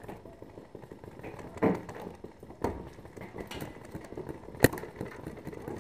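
A paintball marker fires a single sharp shot about three-quarters of the way in, after two duller pops about a second apart near the start.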